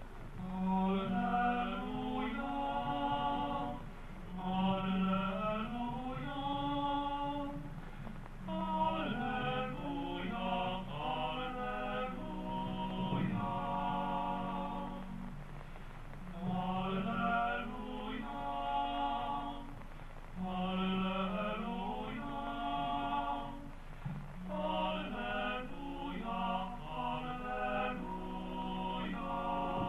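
Voices singing a slow liturgical chant during Mass, in sung phrases of about three seconds each with short breaks between them.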